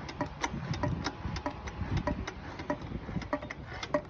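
Rapid, irregular metallic clicking as the Yamaha Fazer 250's single-cylinder engine is turned over by hand with a wrench, its internals opened up to hunt a knock, with a low rumble underneath.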